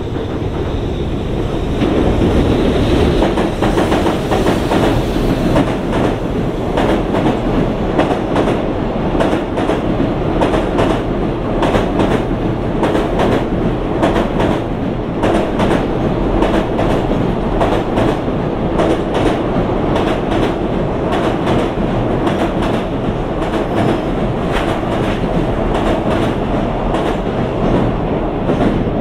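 A JR Freight EH500 electric locomotive passes, hauling a long container freight train, its sound building over the first couple of seconds. After it, the container wagons roll by steadily, their wheels clicking in a continuous clickety-clack over the track.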